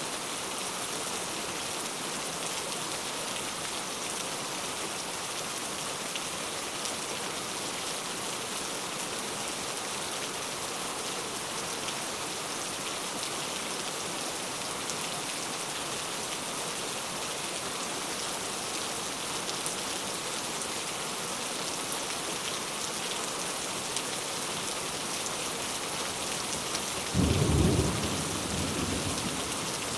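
Steady heavy rain falling, with a sudden low rumble of thunder near the end that is loudest for about a second and then dies away.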